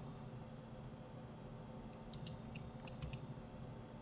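Faint clicks of a computer keyboard and mouse, a quick cluster of about six in the second half, over a low steady hum.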